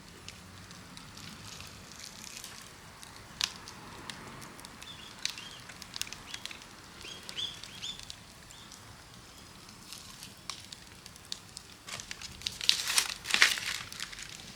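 Wood campfire crackling with scattered sharp pops. A louder cluster of crunching, rustling noise comes near the end.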